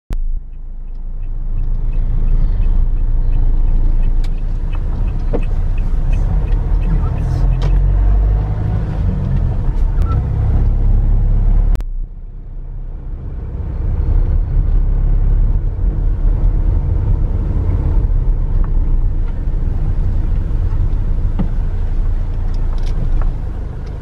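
Steady low rumble of a moving car heard from inside the cabin: engine and road noise. It drops off briefly about halfway through and then builds back up.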